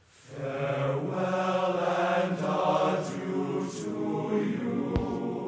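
Choral music: voices singing slow, held notes in the manner of a chant, fading in just after the start.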